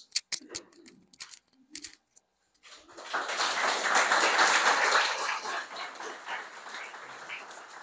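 A small audience applauding: a few scattered claps at first, then general clapping starting about three seconds in that swells and fades out near the end.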